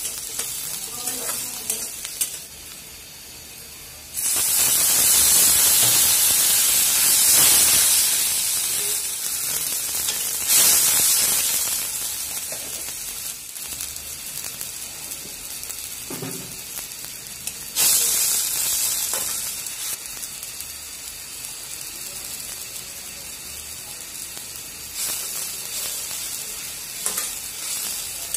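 Onions and green chillies sizzling as they fry in hot oil in a steel kadai, stirred and scraped with a metal spatula. The sizzle flares up suddenly about four seconds in, and again about halfway and two-thirds of the way through, then settles to a lower hiss.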